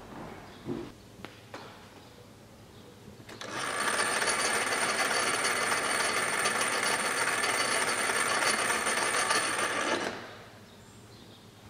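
A mechanism of coloured plastic wheels, pulleys and gears built into a violin case, running with a fast, even rattle and a high whine for about six seconds, then stopping. A few light handling clicks come before it.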